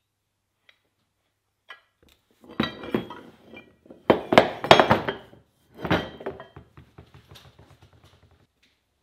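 Heavy steel tools knocking and clinking as they are set down on a wooden workbench. There are several sharp metal knocks with a brief ring, loudest about four to five seconds in, then a fading rattle of small ticks as the pieces settle.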